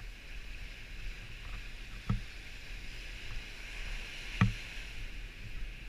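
Small surf waves washing up the shore in a steady hiss, with two sharp knocks about two seconds and four and a half seconds in, the second the louder.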